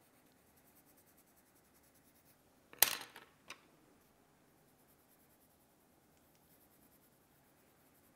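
Faint scratching of a coloured pencil on paper, broken about three seconds in by a sharp clatter and a smaller tap just after, as one pencil is set down on the table and another picked up.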